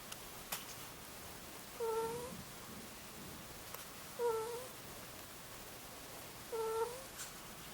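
Angora ferret snoring in its sleep: a soft, short 'kuu' coo on each breath, dipping slightly in pitch and rising again at the end, three times about two and a half seconds apart.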